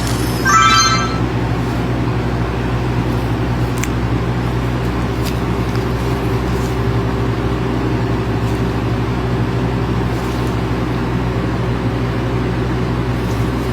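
A steady low mechanical hum, like a fan or motor running, with a short rising chirp about half a second in.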